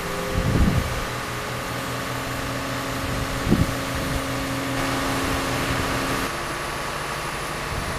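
Diesel engine of a mobile crane running steadily while it lifts a container, a hum with several held tones. Two brief low rumbles come about half a second and three and a half seconds in.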